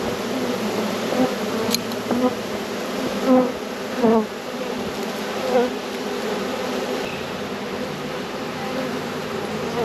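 A honey bee swarm buzzing steadily. Single bees fly close past the microphone three times, each a louder buzz that swells and falls away in pitch.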